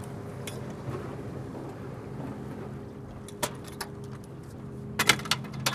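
Boat's outboard motor running steadily with a low, even hum. A few sharp clicks cut across it, one about three and a half seconds in and a cluster about five seconds in.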